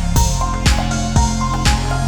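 Electronic background music with a steady kick drum about twice a second over held bass and synth notes.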